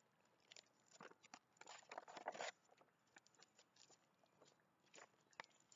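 Near silence with faint paper rustling and soft clicks as a page of a large picture book is turned, the busiest rustle about two seconds in.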